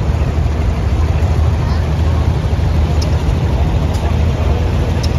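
Vintage Oliver tractor engines running at low speed as the tractors drive slowly past, a steady low rumble.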